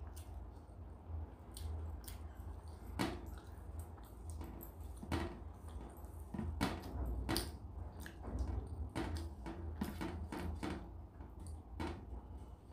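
Eating by hand: fingers squishing and mixing rice and dal on a metal plate, with many short sharp clicks and taps at irregular intervals. A steady low hum lies underneath.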